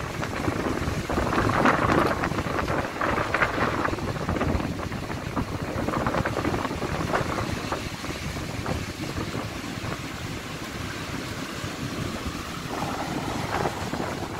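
Storm wind gusting against the microphone over the rush of waves breaking and washing up a sandy beach. Louder in gusts during the first few seconds, then steadier.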